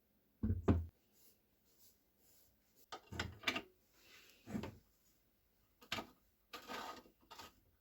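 A series of knocks, clunks and short scrapes from objects being handled. The loudest is a double knock about half a second in, followed by several more scattered handling sounds.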